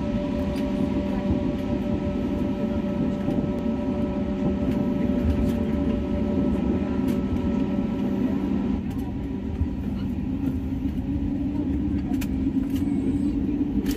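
Airliner cabin noise as the plane rolls along the ground: a steady rumble with engine hum and several steady tones. The higher tones fade out about nine seconds in, and a deeper hum grows stronger near the end.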